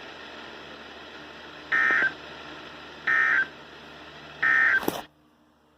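Emergency Alert System end-of-message data tones from NOAA Weather Radio: three short, identical warbling digital bursts about a second and a half apart over the broadcast's hiss, signalling the end of the alert. A click follows near the end and the signal cuts off.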